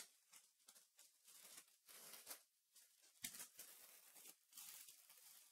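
Faint, intermittent rustling of trading cards and pack wrappers being handled, with a sharper tap a little over three seconds in.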